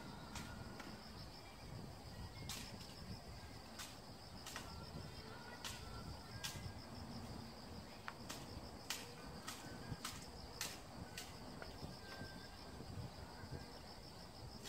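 Jujubes being knocked from a tree: scattered sharp clicks and taps at irregular intervals, about one a second. A steady high insect trill runs underneath.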